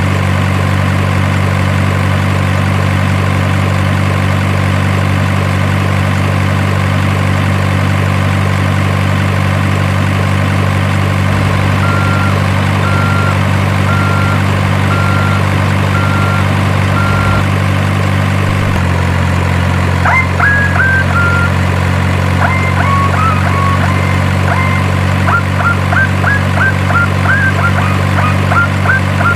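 Simulated diesel truck engine sound from an RC model truck, running steadily at idle with a slight change in pitch about two-thirds of the way through. Six evenly spaced high beeps sound about a second apart, like a reversing alarm, and are followed by short high chirps.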